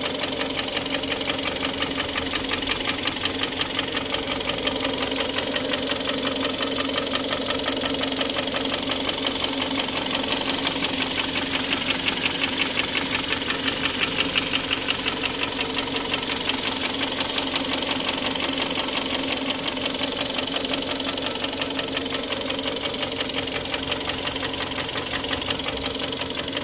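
Third-generation Kia Sportage engine running steadily with a fast, regular knock beating in time with it, the engine knock the owner is showing.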